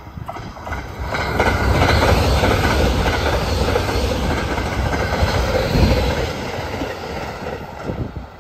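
Limited express electric train passing close by at high speed: the rumble and clatter of its wheels on the rails swell about a second in, stay loud for several seconds, then ease off near the end.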